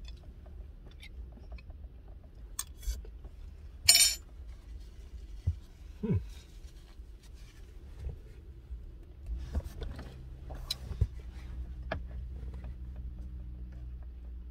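Quiet eating sounds: small clicks and clinks of food containers being handled, with one sharp clatter about four seconds in and a short 'mm' of enjoyment about two seconds later, over a steady low hum.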